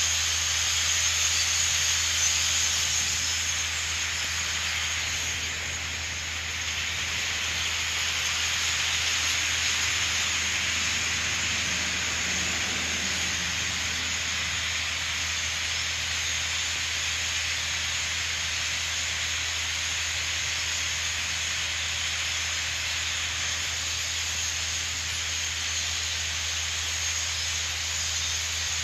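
Dense, steady, hiss-like din of chatter from a very large flock of European starlings passing overhead and settling in nearby trees, with no single call standing out.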